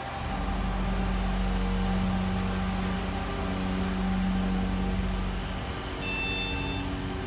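Elevator drive running as the car starts off and travels: a steady low hum that eases off about five and a half seconds in. About six seconds in, a single high electronic chime of about a second sounds as the car nears its stop.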